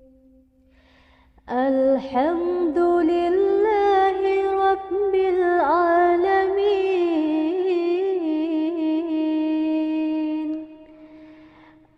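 A single voice chanting Qur'an recitation in one long, ornamented melodic line, held on a steady pitch with wavering turns. It starts about a second and a half in and fades out near the end.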